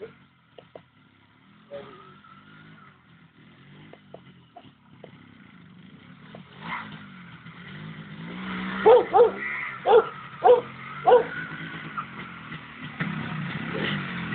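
MZ TS 250/1's single-cylinder two-stroke engine running, with a dog barking five times in quick succession about nine to eleven seconds in. The engine is louder near the end.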